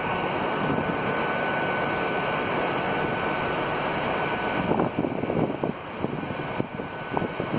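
A South Western Railway diesel multiple unit running in the distance as it pulls out, heard as a steady hum with a faint high whine. About five seconds in the whine stops and the sound turns uneven, with brief crackles of wind on the microphone.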